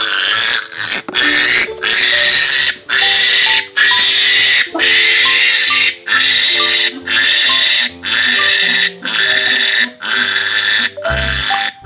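Young piglet squealing loudly and repeatedly, about one squeal a second, in distress while it is restrained and injected with iron.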